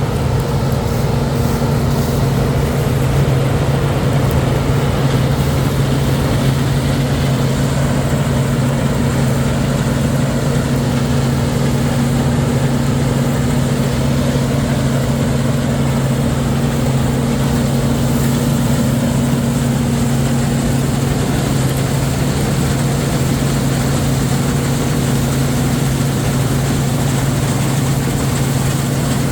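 A farm machine's diesel engine running steadily, a constant low hum with no change in speed. One higher tone in the hum fades out about two-thirds of the way through.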